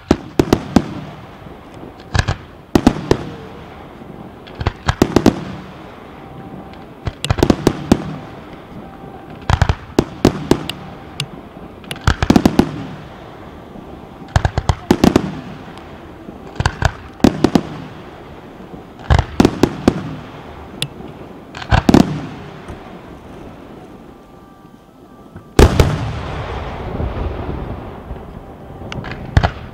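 Aerial fireworks shells bursting in clusters of sharp bangs every two to three seconds, with the crackle of glittering stars between them. Near the end a denser crackling barrage runs for several seconds.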